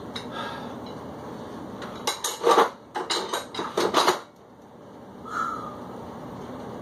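Metal dumbbells clanking and knocking together as they are set down: a quick run of sharp metallic impacts that starts about two seconds in and lasts about two seconds.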